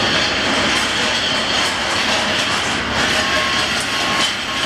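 Steady, loud rumble and hiss of heavy vehicles, with no letup.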